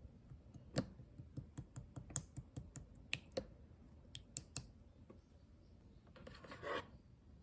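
Clear slime being pressed and poked, giving a run of sharp clicks and pops over the first four and a half seconds, then a short squish near the end.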